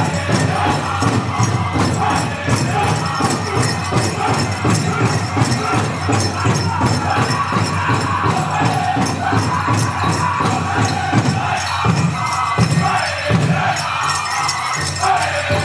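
Powwow drum group singing in high voices over a steady beat struck together on a big drum, accompanying competition dancing.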